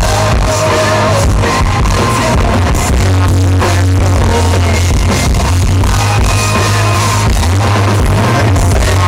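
Live rock band playing, with a male lead vocal singing over electric guitar, bass and drums. The loud amplified sound is distorted by the recording microphone close to the stage.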